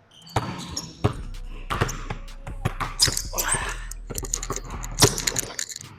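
Basketball bouncing on a hardwood court during a pickup game: irregular thuds from dribbles and other ball impacts.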